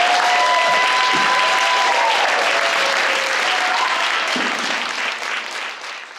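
Audience applauding, with a few voices whooping and cheering over the clapping; it fades out at the end.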